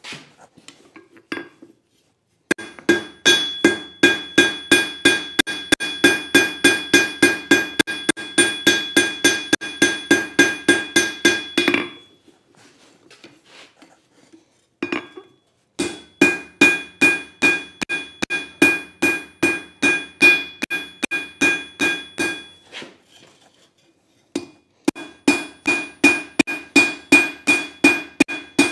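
Hand hammer striking red-hot leaf-spring steel on an anvil, forging the bevel at the end of a chisel: steady blows about three a second, each with a bright ringing tone. The hammering comes in three runs, pausing twice for a few seconds.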